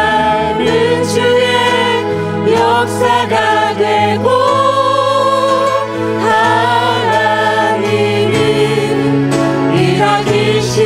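Praise team of mixed men's and women's voices singing a Christian worship song together into microphones, over acoustic guitar and sustained low accompaniment notes that shift a couple of times.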